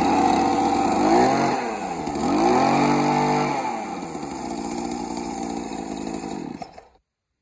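A 20cc Makita brush cutter engine running just after a recoil start from cold, with the primer pumped and the choke closed. Its revs dip and climb a couple of times, settle lower, then fade and cut off about seven seconds in.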